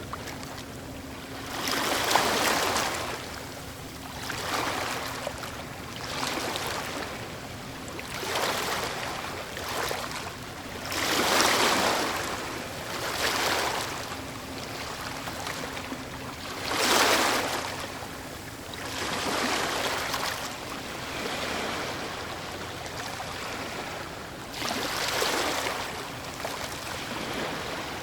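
Ocean waves breaking on a beach, each wash swelling and fading every two to three seconds, the loudest crashing about 2, 12 and 17 seconds in.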